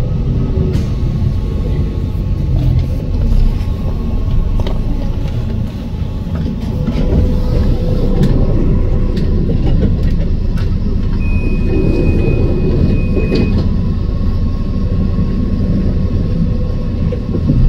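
Interior rumble of a moving bus: a steady low running noise with scattered rattles and clicks. A high steady beep sounds for about two seconds, about eleven seconds in.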